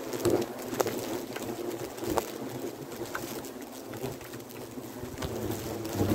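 Swarm of hornets buzzing close by as they attack a held balloon, a steady droning hum with several sharp taps scattered through it.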